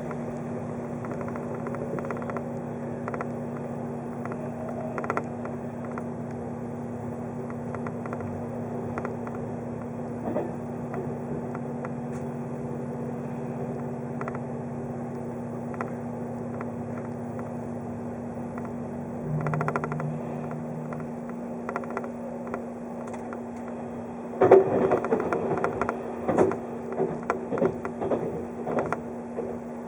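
Inside a running 583 series electric train: a steady hum and running noise with occasional clicks, then from about 24 seconds in a loud run of knocks and rattles.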